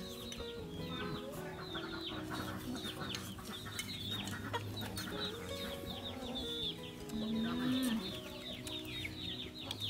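Chickens clucking and chirping, with many short, high, falling chirps close together, and a brief louder low hum about seven seconds in.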